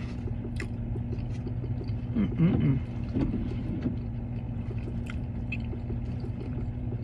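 Steady low hum of an idling car, with small clicks and scrapes of a plastic spoon in a paper cup. A short wavering hum of a voice comes about two seconds in.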